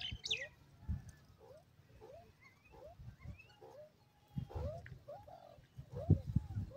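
Grey francolin (white teetar) giving a run of short, soft rising notes, about one every half second, with a brief higher falling chirp at the very start. A few low thumps are mixed in.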